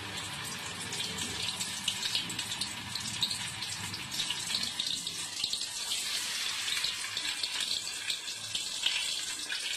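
Battered Bombay duck pieces frying in a kadai of hot vegetable oil: a steady sizzle with many small crackles.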